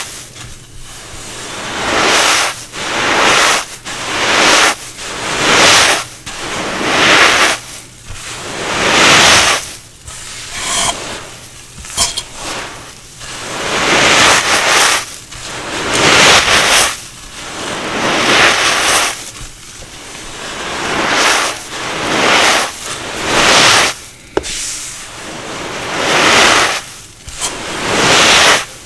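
Fragile dried cornstarch pieces being crushed, crunch after crunch, about one every second or so with short pauses between.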